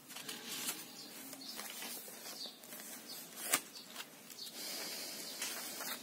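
Paper rustling and light taps as the pages and inserts of a handmade journal are turned and handled, with one sharp click about three and a half seconds in and a steadier soft rustle over the last second or so.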